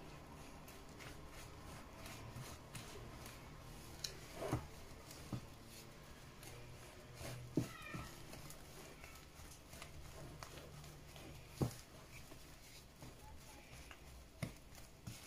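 Silicone spatula stirring and scraping thick dough in a glass bowl, faint, with a few sharp knocks of the spatula against the glass and a couple of brief high squeaks, about four and eight seconds in.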